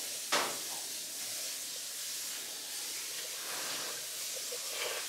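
Omelette sizzling in a frying pan on a gas stove, a steady hiss, with one sharp clink of a fork against the pan about a third of a second in.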